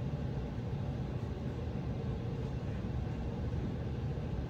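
Steady low background rumble of room tone.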